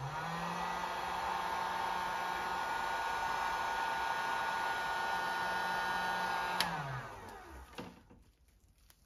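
Electric heat gun spinning up and running steadily, blowing hot air with a fan whine, heating the end of quarter-inch drip irrigation tubing to soften it. It is switched off with a click about six and a half seconds in, and the fan winds down, falling in pitch, over about a second.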